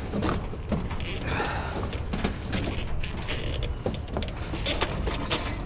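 Scattered knocks and clatter of junk being handled and shifted, with a scraping rustle about a second in.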